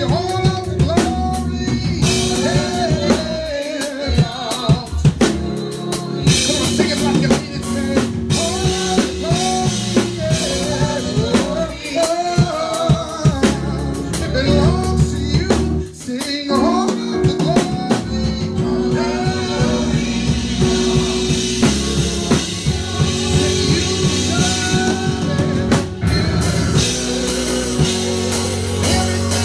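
Live gospel praise-and-worship music: organ chords held under a sung melody, with a drum kit keeping a steady beat.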